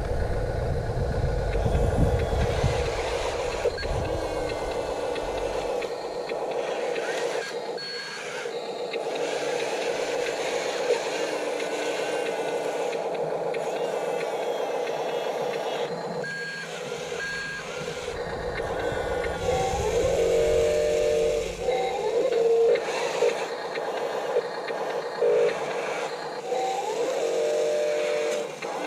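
Radio-controlled construction vehicles at work: a steady high electric motor and gear whine, with a low rumble in the first few seconds. In the last third, short stepped whining tones come and go as the machines start and stop moving.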